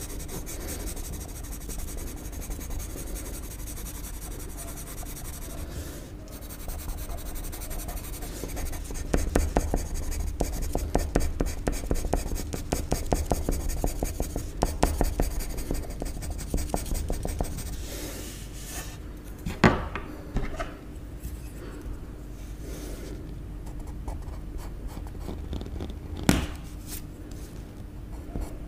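Pencil sketching on a sheet of paper: light scratching strokes, turning into a run of quick, louder strokes in the middle. Two sharp knocks stand out later on.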